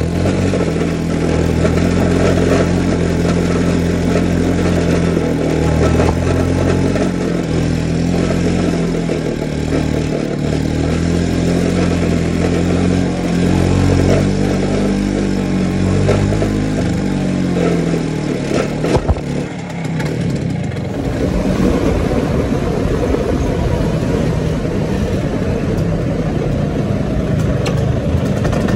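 Vespa scooter engine running while riding, its pitch stepping up and down with the throttle. After a couple of sharp clicks about two-thirds of the way through, a steady rush of wind and road noise takes over.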